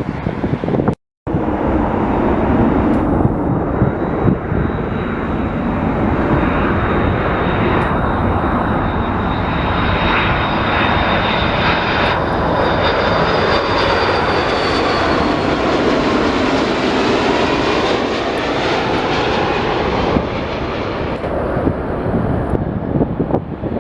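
Jet airliner's engines passing close by: a loud, steady rush with a high whine that drops slightly in pitch as the aircraft goes past. The sound cuts out completely for a moment about a second in.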